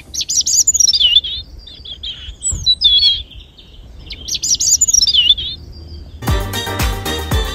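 A songbird singing: a fast, high warbling phrase, a few short notes about halfway through, then a second warbling phrase. Background music with a steady beat starts up again near the end.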